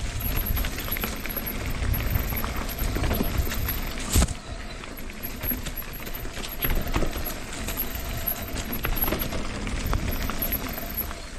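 Mountain bike rolling fast down a rough dirt trail: tyres rumbling over the ground, with frame and chain rattling in short knocks, and one sharp hard knock about four seconds in.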